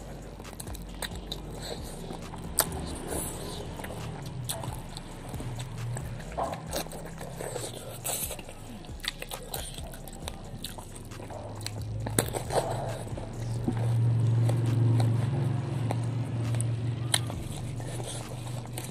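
A person chewing and biting food close to the microphone, with crisp crunches and many sharp clicks and smacks. A low steady hum rises in the second half and is loudest near the end.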